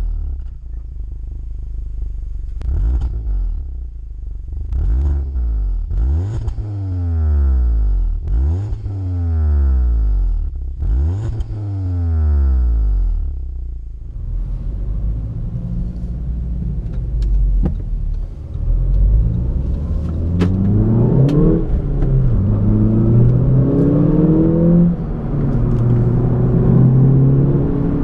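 Audi S1's turbocharged four-cylinder engine heard at its twin tailpipes, revved several times while standing, each rev falling quickly back down. From about halfway the car is under way and accelerating, the engine note climbing and dropping back three or four times as it shifts up.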